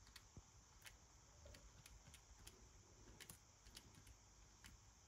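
Faint clicks of a Casio pocket calculator's plastic keys being pressed one at a time, about two a second.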